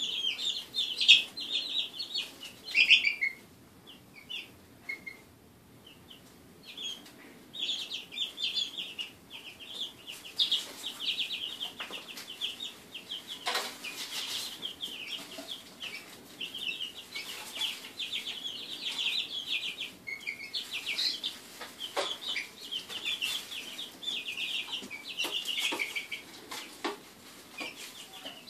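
A brood of three-week-old chicks peeping almost without pause, many short high calls overlapping, with a quieter lull about four to seven seconds in. A few sharp clicks stand out.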